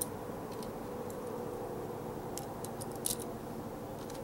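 A few light, short clicks from .22 LR rounds being loaded into a pistol magazine, most of them bunched a little past halfway, over a steady background hum.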